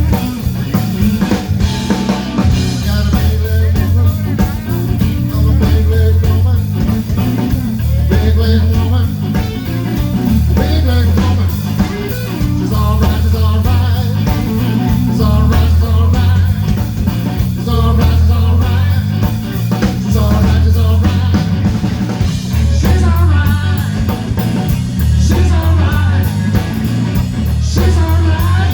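Band playing a slow blues: electric guitar over bass and drums, with a low bass figure repeating every couple of seconds.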